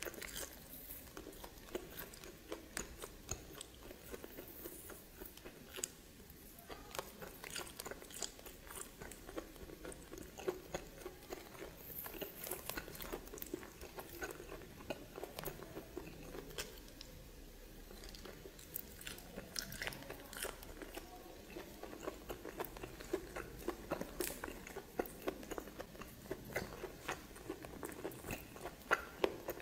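A person chewing and biting steamed snake meat, with wet chewing and many irregular crisp clicks and crunches.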